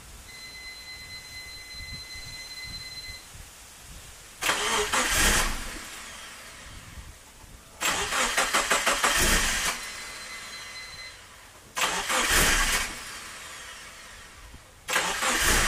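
Subaru Forester's turbocharged EJ20 flat-four being cranked by the starter in four separate tries of one to two seconds each, pulsing quickly, without catching: the engine is not starting. A steady electronic beep sounds for about three seconds before the first try.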